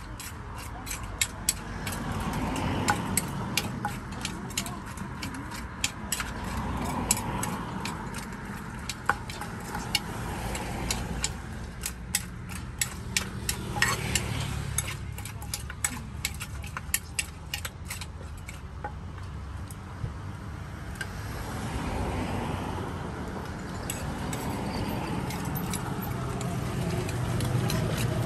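Kitchen utensils clicking and knocking rapidly and irregularly as a Thai salad is mixed and prepared, several strikes a second. The clicks thin out a little past the halfway point, over a low steady hum.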